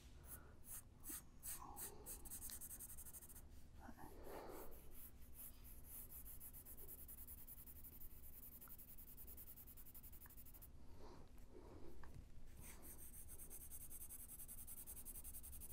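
Faint scratching of a pencil shading on paper in slow, light strokes, building up tone.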